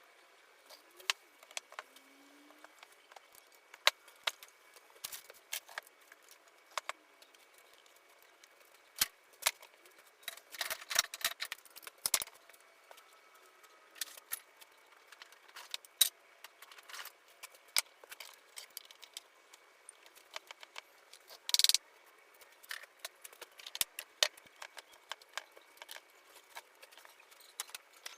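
Scattered sharp clicks and knocks of wooden parts and hand tools being handled during woodworking assembly. There is a dense flurry of them about ten to twelve seconds in and a brief loud clatter about two-thirds of the way through.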